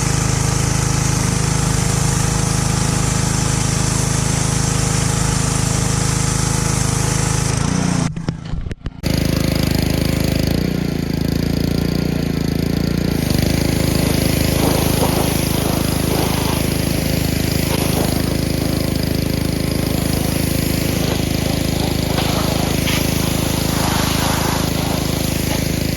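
Gas pressure washer's small Honda engine running steadily after being started, with a brief break about eight seconds in.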